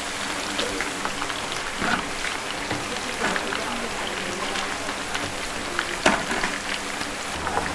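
Hot oil sizzling and crackling as peanut cookies deep-fry, with scattered small clicks and one sharper click about six seconds in.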